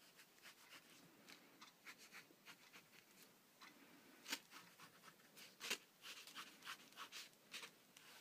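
Pen scratching on paper in quick, irregular short strokes as lines are drawn, faint overall, with two louder strokes a little after four seconds and near six seconds in.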